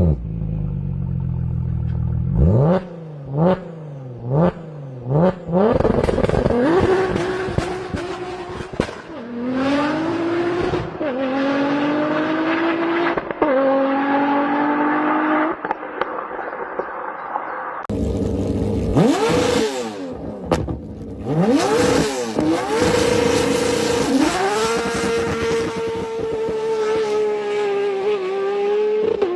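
Performance car engines revving and accelerating hard. Several sharp blips of the throttle come in the first few seconds. Then the pitch climbs and drops back again and again as the car shifts up through the gears. About eighteen seconds in there is an abrupt cut to another car, revving and then running at high revs.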